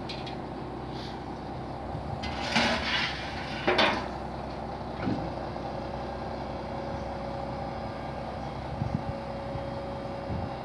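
Aluminium loading ramps clattering as they are put away, with two loud metallic bangs between about two and a half and four seconds in and a lighter knock about a second later, over a steady low hum.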